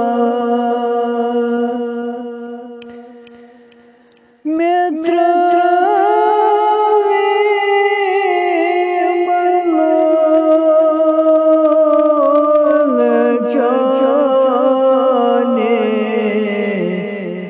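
A solo voice sings a naat, a devotional Islamic praise song, unaccompanied, in long held and ornamented notes. One phrase fades away on a held note, a new phrase begins about four seconds in, and it trails off again near the end.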